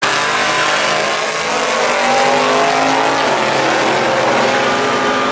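Two drag cars' engines at full throttle racing down the strip, their pitch climbing as they accelerate. The sound starts suddenly and stays loud throughout.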